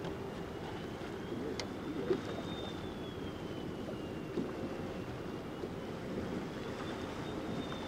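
Boat motor running steadily with a low hum, and a faint high whine that slowly rises and falls in pitch.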